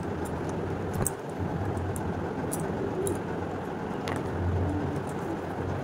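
Cloth rustling as a cotton children's T-shirt is handled and folded, over a steady background hum, with a couple of light clicks.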